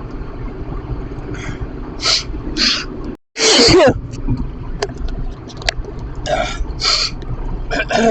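A man's allergic sneezing fit inside a moving car: a run of sharp gasping in-breaths, then a loud sneeze about three and a half seconds in, just after a brief cut in the sound, followed by more gasps. Steady car road rumble runs underneath.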